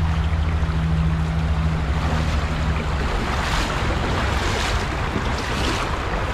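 Shallow creek water rushing and rippling over rocks in a riffle, a steady rushing noise with a low rumble underneath.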